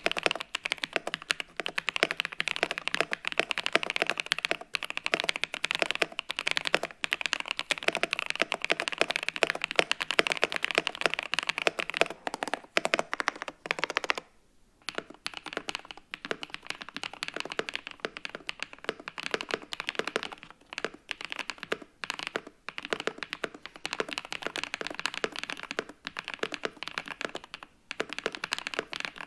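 Continuous fast typing on an Epomaker Shadow X 70% mechanical keyboard with a plastic case, first on its stock switches. After a short break about halfway, the typing resumes on the same keyboard with its switches lubed.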